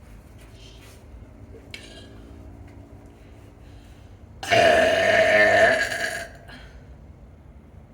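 One loud, drawn-out burp of about two seconds, beginning about halfway in.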